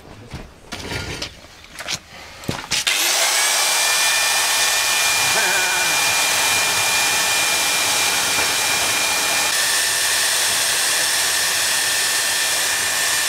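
Electric angle grinder starts about three seconds in and runs steadily at speed with a high whine. It follows a few seconds of knocking and handling noise.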